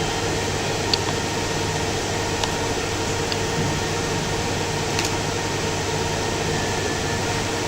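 Steady hiss and hum of room noise, with a few faint clicks scattered through it.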